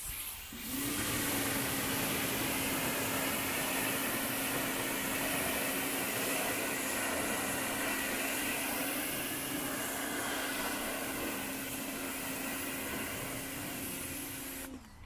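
Greenworks 1700 PSI electric pressure washer starting up just under a second in and running steadily, a constant hum under the hiss of the water spray, then cutting off suddenly just before the end.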